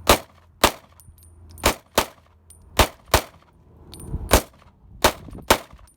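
.45 GAP pistol (Glock 37 Gen 4 slide on a Polymer 80 PF940CL frame) firing about nine shots at an uneven, fairly quick pace, each a sharp crack.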